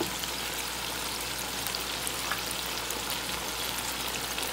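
Chicken pieces frying in oil in a wok, just doused with soy sauce: a steady sizzle with faint scattered crackles.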